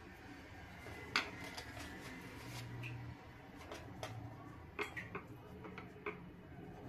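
Quiet handling sounds of hands rolling a sheet of dough around a potato filling on a wooden board: a few short, sharp clicks and taps, the sharpest about a second in and a small cluster between four and six seconds in.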